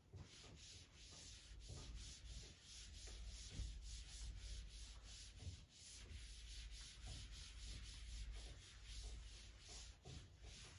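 Faint, rhythmic back-and-forth rubbing of a board eraser wiping the board clean, about three strokes a second.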